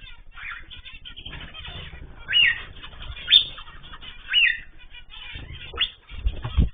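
Pet birds calling in a cage or aviary. Four loud, sharp chirps come about once a second over a steady background of softer chatter, with a low thump or flutter near the end.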